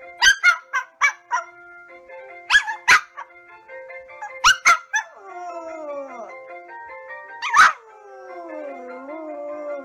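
Small Pomeranian dog giving a series of sharp, high barks in the first half, then howling in long falling, wavering tones with one more bark in between, over background music.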